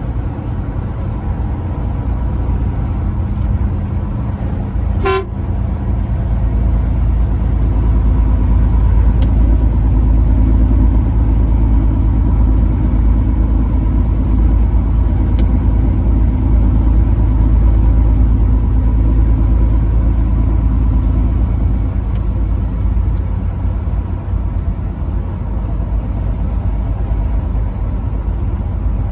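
Truck on the move: steady low engine and road rumble. A short toot sounds about five seconds in.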